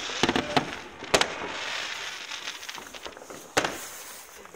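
Fireworks going off: a few sharp bangs, the loudest about a second in and again near the end, with crackling between them.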